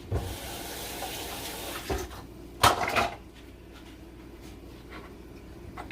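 Cooking sounds at a pot of boiling water: an even hiss for about two seconds, then a knock and a louder clatter of cookware about two and a half seconds in.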